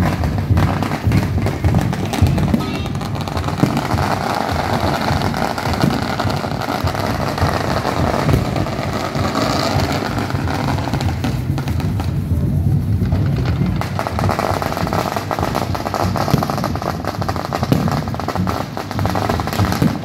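Aerial fireworks going off in rapid succession: a continuous run of bangs and crackling with no break.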